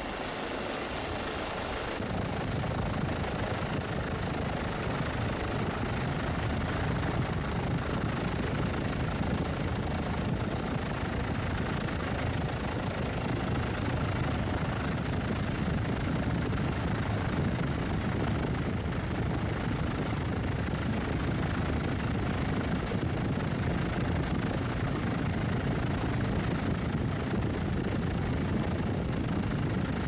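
Steady drone of a helicopter's engine and rotor heard from inside the cabin, a low rumble under an even hiss; the rumble grows stronger about two seconds in.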